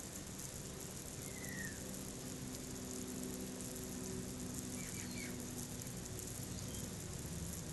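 Steady hiss of water spraying from a garden hose onto plants, with a few faint bird chirps, one about a second and a half in and a pair about five seconds in, over a low steady hum.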